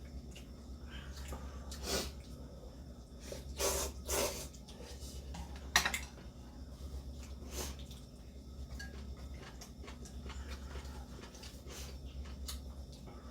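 Eating sounds: a few short slurps of ramen noodles and soup, and one sharp clink of a utensil against a bowl about six seconds in, over a steady low hum.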